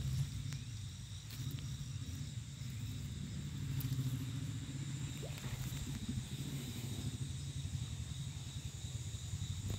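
A steady low rumble, with two faint steady high-pitched tones above it.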